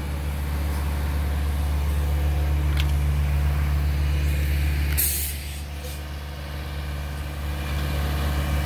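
Engines of a concrete pump and a ready-mix mixer truck running steadily, with a short sharp hiss of air about five seconds in.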